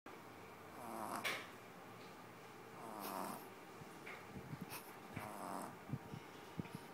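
Boston Terrier puppy snoring in its sleep: three snores about two seconds apart, with short clicking snuffles between them in the second half.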